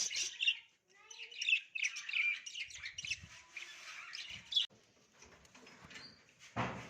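Budgerigars chirping and chattering, the chatter stopping abruptly about two-thirds of the way through; a thump near the end.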